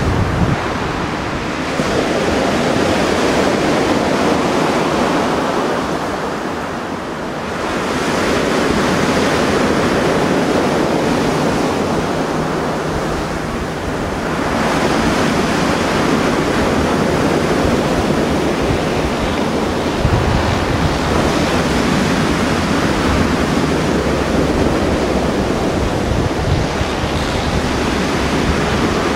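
Mediterranean sea waves surging and breaking on the shore, rising and falling in slow swells, with wind buffeting the microphone, strongest in the second half.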